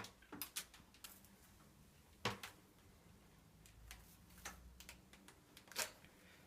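Near silence with a few scattered sharp clicks and knocks, the loudest about two seconds in and again near the end.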